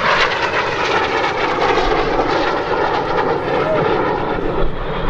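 Red Arrows BAE Hawk T1 jet flying past, its Adour turbofan making a loud, steady jet noise.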